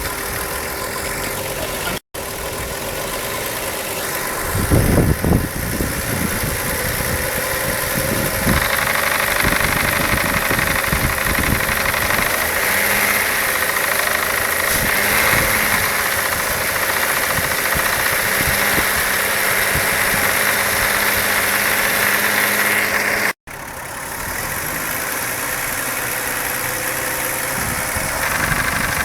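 A 2001 Volkswagen Jetta's 2.8 VR6 engine running with an abnormal rattling noise, which the owner later traced to worn bushings on the intake manifold shift rod. The engine's pitch rises about eight seconds in and holds higher until it drops back near the end. There is a brief low rumble about five seconds in.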